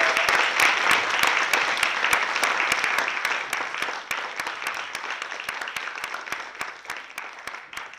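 Theatre audience applauding after a live piano trio performance, the clapping thinning out and fading away over the last few seconds.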